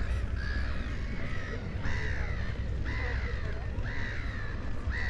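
A bird calling over and over, one arched call about every second, above a steady low rumble.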